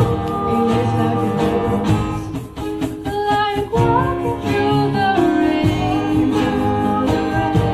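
A song: singing over guitar with a steady beat, briefly dropping in level a couple of seconds in.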